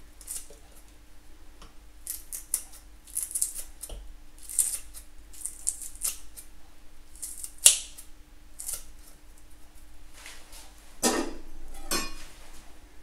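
Five-bladed herb scissors snipping chillies, a short sharp snip with each cut, many times at an uneven pace, with two louder clacks near the end.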